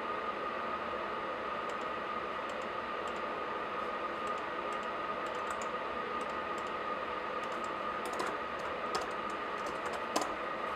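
Laptop keyboard typing: scattered keystroke clicks, sparse at first and more frequent later, with a few louder taps near the end. A steady hiss with a faint high whine runs underneath.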